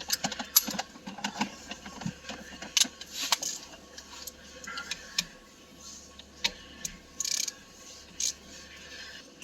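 Socket ratchet on an extension clicking as it works the shifter's mounting bolts loose, with scattered metal clicks and a short rattle about seven seconds in.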